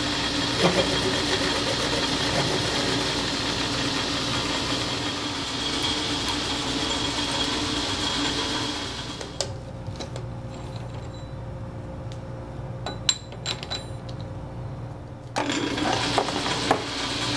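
South Bend metal lathe running, a steady motor and belt-drive hum with the bar stock spinning true in the chuck. About nine seconds in the sound drops to a quieter run with a few light clicks, and the louder running returns near the end.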